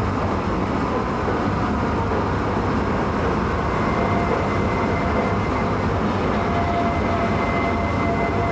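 Elevated electric railway car running along its track: a steady low rumble of wheels and running gear. A faint high whine joins about halfway through.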